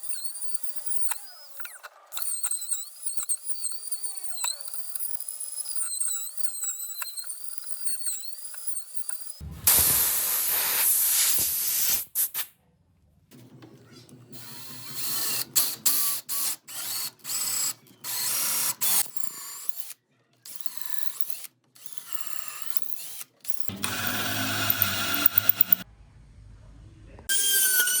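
Electric power tool, such as a drill, running in several short bursts of a few seconds each, starting and stopping abruptly, from about a third of the way in. Before that only faint wavering high tones are heard.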